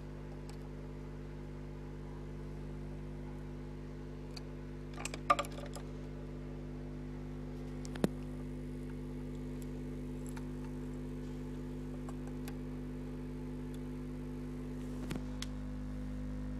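JL Audio 10W7 10-inch subwoofer, driven by a JL 500/1 amplifier, playing a steady 50 Hz test tone: a low hum with a row of overtones above it. A brief clatter about five seconds in and a sharp click at about eight seconds.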